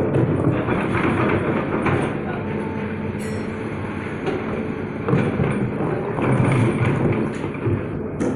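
Hitachi excavator running, a steady heavy rumble with irregular metallic clatter.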